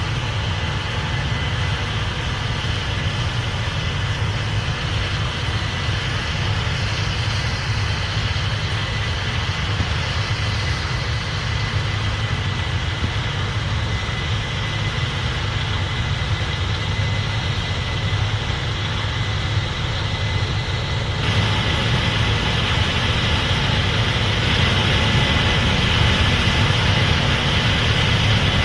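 Case IH 8250 Axial-Flow combine running while harvesting corn: a steady, loud machine drone with a faint high whine. About two-thirds of the way through, the sound steps up and becomes fuller and louder.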